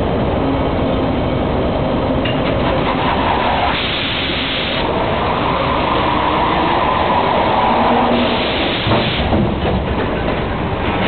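Machinery of an automated veneer peeling line running: a steady, loud mechanical din. It has two spells of hiss, about four and about eight seconds in, and a few clacks near the end.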